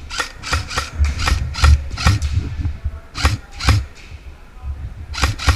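Airsoft electric rifle firing a quick string of semi-automatic shots, about four a second, then two more shots in the middle and a tight group of three near the end, with low thuds under them.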